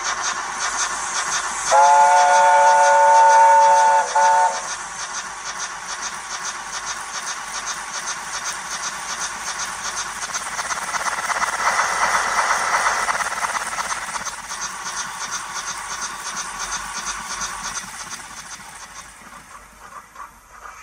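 Digital steam sound from the YouChoos Zimo sound decoder in a Hornby A4 'Kingfisher' model locomotive, played through its small speaker: steady rhythmic chuffing with steam and drain-cock hiss. Under it, the A4's chime whistle sounds about two seconds in as a chord of several notes, one long blast then a short one. The chuffing swells in the middle and fades away near the end.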